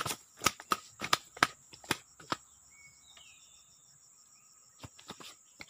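Insects droning steadily at a high pitch, with a faster pulsing chirp just beneath it. A run of sharp, irregular clicks and snaps fills the first two and a half seconds, then stops.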